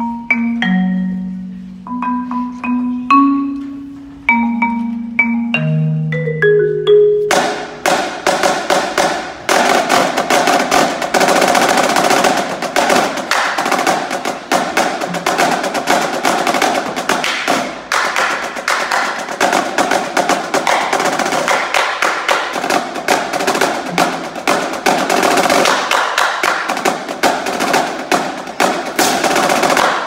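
A marimba plays single ringing notes, ending in a quick upward run. About seven seconds in, a marching drumline comes in all together: snare drums, tenor drums, bass drums and crash cymbals playing loud and dense.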